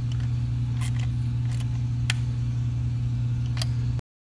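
A ratchet tightening the oil separator's bracket bolt: a few single sharp clicks at uneven spacing over a steady low hum. The sound cuts off suddenly near the end.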